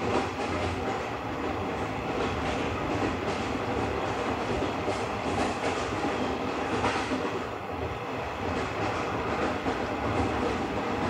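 JNR 50-series passenger coach running along the track: a steady wheel-on-rail rumble with repeated clickety-clack beats as the wheels cross rail joints.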